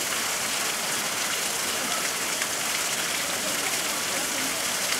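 Steady, even rushing hiss of running water, with no distinct splashes or calls standing out.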